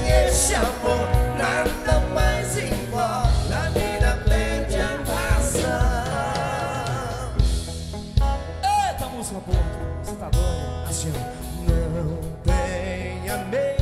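Live band playing a Brazilian country song in moda de viola style: a man singing over acoustic guitar and a drum kit.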